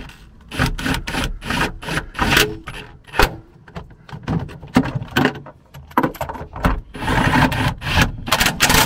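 Cordless impact wrench run in short bursts on the rear shock's top-mount nuts, with the socket clattering and scraping against the nut and mount between bursts.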